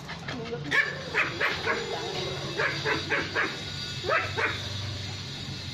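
Young dogs yipping and barking: short, high barks in quick runs of two to four.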